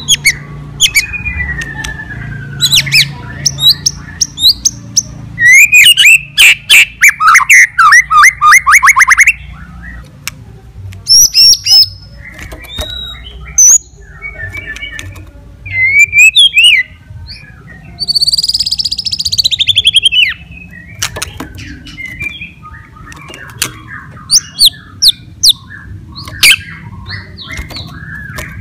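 White-rumped shama (murai batu) in full, vigorous song: sharp whistles and clicks, a fast run of repeated notes lasting about four seconds, and a harsh rasping call about two-thirds of the way through.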